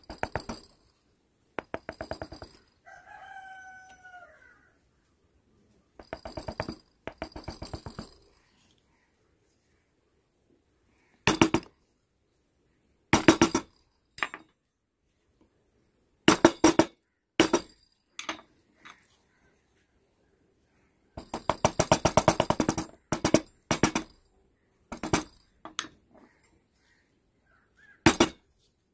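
Hand carving tool strokes into wood, each a short burst of rapid scraping clicks with pauses between strokes. A rooster crows once, about three seconds in.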